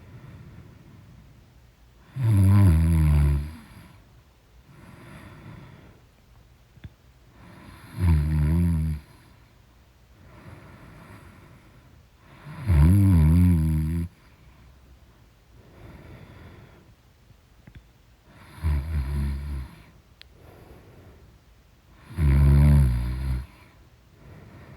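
A woman snoring loudly in her sleep: five long, low snores on the in-breath, about one every five seconds, with quieter breathing out between them.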